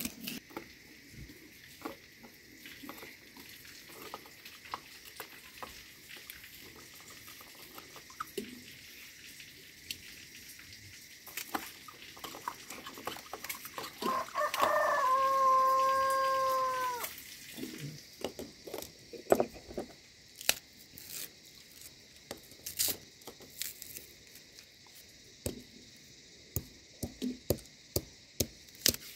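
A rooster crows once, one long call of about two and a half seconds midway through. Around it come scattered sharp knocks of a stone pestle on a flat grinding stone, growing more frequent near the end.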